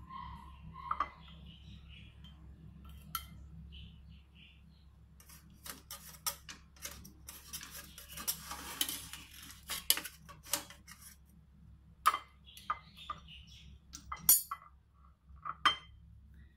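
A metal utensil clinking and scraping against an aluminium steamer tray as steamed siu mai are lifted off it. The clinks are scattered, with a busy stretch in the middle and a few sharper knocks near the end, over a steady low hum.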